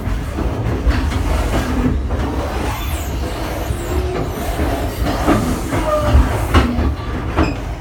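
Passenger train carriage heard from inside, its wheels rumbling steadily on the track with a few sharp clacks over rail joints and points and brief faint squeals as it pulls into a station.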